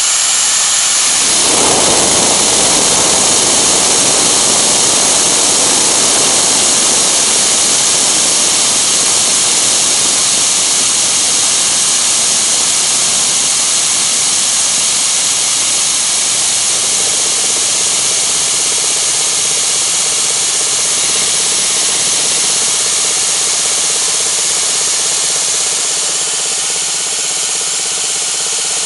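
Compressed air blasting steadily out of a brass blow nozzle fed from a vintage compressor's tank: a loud, even hiss, with a lower rush in the first couple of seconds.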